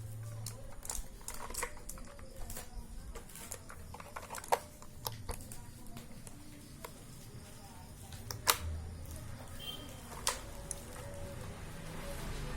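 Irregular clicks and knocks from handling a Redragon K568 mechanical keyboard, with two sharper knocks about a third and two-thirds of the way through.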